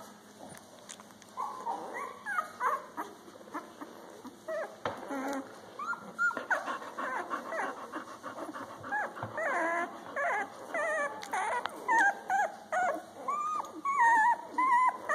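Newborn puppies squeaking and whimpering while they nurse from their mother, many short high calls overlapping, growing busier about six seconds in.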